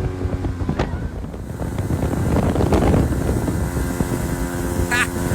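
1985 Yamaha 50 hp two-stroke outboard running at speed on a small aluminum boat, with wind buffeting the microphone. A short voice call near the end.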